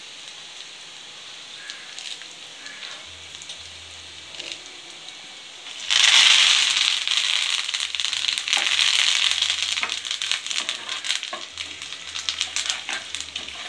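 Peppercorns and cashews frying in ghee in a small pan, sizzling steadily, as a tempering for ven pongal. About six seconds in, curry leaves go into the hot ghee and the sizzle turns suddenly much louder, with crackling and spitting. Near the end a ladle stirs the pan, and the sizzle goes on with sharp crackles.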